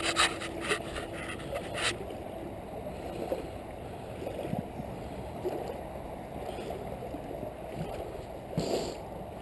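Fast creek water rushing and gurgling around the legs of a person wading across in waders. There is brisk rustling for the first two seconds and a short sharper splash near the end.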